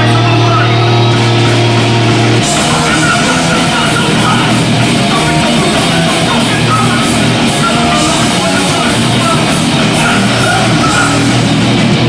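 Hardcore punk band playing live and loud with distorted guitars, bass and drums. A held chord rings for the first couple of seconds, then the full band crashes in at about two and a half seconds.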